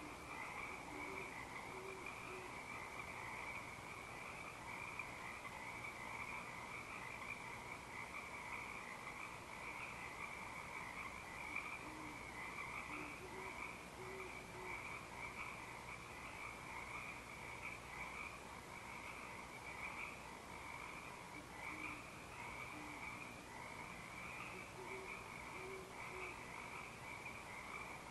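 Dense, unbroken frog chorus of many trilling calls. Through it, a pair of great horned owls give several short series of faint, low hoots, calling to each other.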